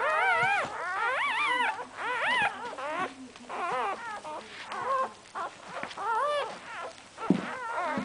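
Newborn cocker spaniel puppies squealing and whimpering: many high, wavering cries, often several at once, with only short breaks.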